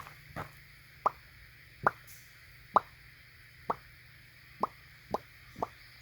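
A series of short, hollow knocks, about one a second at first and coming faster near the end.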